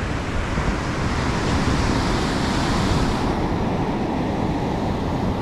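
Heavy surf breaking and washing up the beach: a steady rushing roar, with a low rumble of wind buffeting the microphone. The hiss eases a little about three seconds in.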